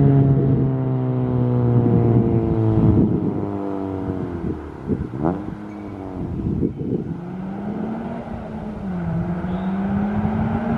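A 9th-generation Honda Civic with an Invidia cat-back exhaust and aftermarket downpipe coasting off the throttle: the exhaust note falls steadily as the revs drop, with a few sharp pops and crackles on the overrun about five to seven seconds in. After that the engine settles to a low, slightly wavering drone.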